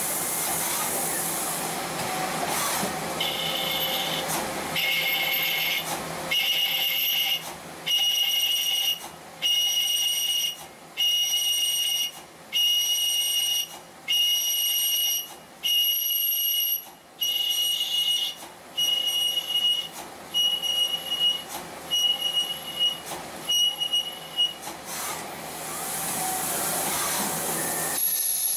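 CNC lathe cutting a brass workpiece: the tool in the bore squeals in regular short cuts, roughly one a second with brief pauses between, stopping about 25 seconds in. A steady hiss of coolant and machine noise runs under it and carries on alone at the start and end.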